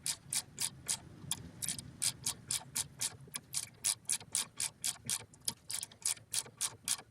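Regular ratcheting clicks, about four a second, over a low steady hum, from a tool working a thread.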